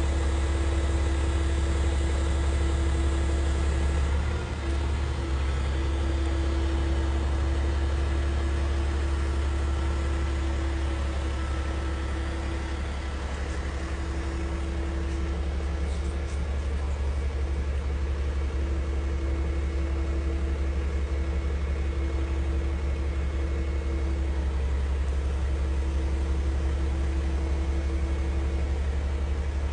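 Engine of heavy equipment running steadily at a constant speed, a low, even hum with a steady tone above it.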